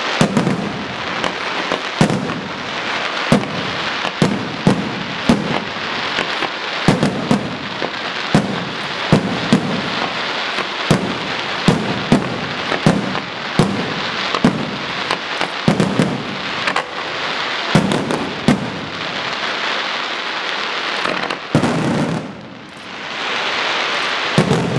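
Professional fireworks display: aerial shells bursting in quick succession, sharp bangs about one or two a second over a steady hiss. The barrage briefly falls away near the end, then swells again.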